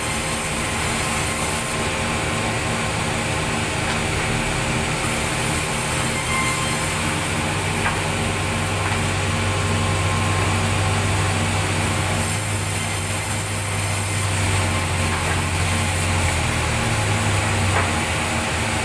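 Sawmill's vertical band saw and its drive motors running steadily, a continuous mechanical hum and whine. A deeper, louder hum comes in for several seconds in the middle.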